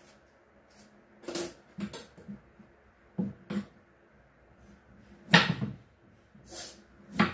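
Irregular short scrapes and knocks of a carrot being peeled and cut on a wooden cutting board, about eight strokes, the loudest a little past five seconds in.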